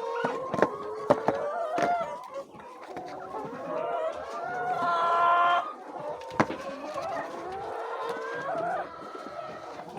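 A flock of chickens clucking, with one long, loud call about halfway through, typical of a rooster crowing. A few sharp knocks come in the first two seconds and once more past the middle.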